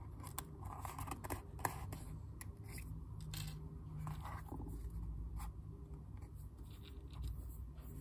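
Irregular small clicks and scrapes of an axial diode's wire leads being bent and pressed in a plastic lead-bending gauge, over a steady low hum.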